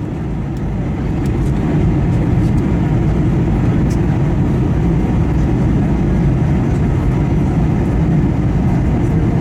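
Steady low rumble of an Airbus A321 heard from inside the cabin in flight: engine and airflow noise, even and unbroken.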